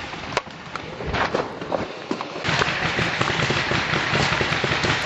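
Paintball markers firing, with sharp scattered pops. About two and a half seconds in, a louder steady rushing noise sets in with rapid ticks and pops through it.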